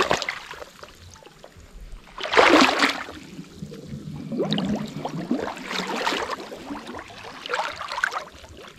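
Footsteps wading through mud and shallow water: irregular sloshing splashes, the loudest about two and a half seconds in.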